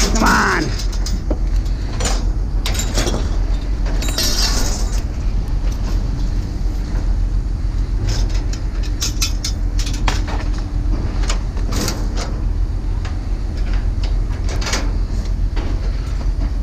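Vehicle driving with a steady low engine rumble while its load and body rattle and clank over and over. A brief squeal right at the start.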